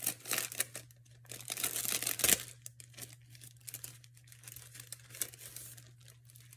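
Clear plastic packet crinkling and rustling as it is opened and thin tissue collage paper is slid out of it, in irregular crackles that are busiest about two seconds in and then thin out.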